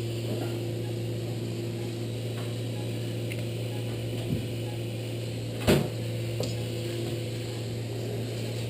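Steady low electrical machine hum of operating-room equipment with a fainter higher tone over it, broken by a single sharp click about two-thirds of the way through.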